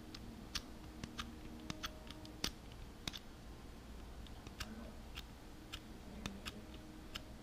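Faint, irregular clicks of a Master Lock M175 padlock's small combination dials being turned one notch at a time by thumb.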